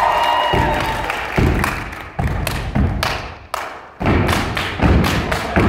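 Step team's stomp routine: feet stomping heavy thuds on a stage floor, mixed with sharp hand claps and slaps, in an uneven rhythm of strikes with a brief lull about three and a half seconds in.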